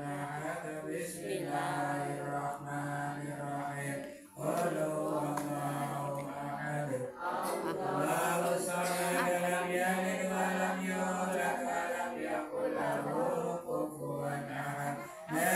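Group of men chanting tahlil dhikr together in drawn-out unison phrases, one voice led over a microphone. The phrases break briefly for breath about four and seven seconds in and again just before the end.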